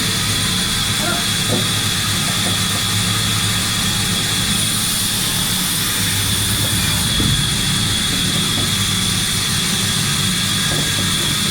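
Steady, continuous machinery noise: an even hiss with a constant high whine and a low hum.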